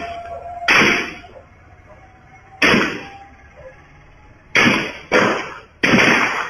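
A series of five sharp impact sounds at irregular intervals, each fading quickly, the last three coming close together.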